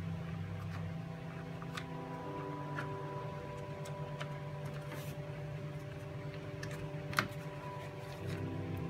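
Insulated wires being handled and pressed into place along a car's firewall: a few light clicks and taps, the sharpest about seven seconds in, over a steady hum with sustained tones that shift twice.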